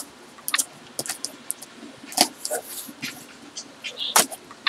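A small blade slitting the packing tape on a cardboard box, with irregular sharp clicks and scrapes of metal against tape and cardboard. One louder click comes about four seconds in.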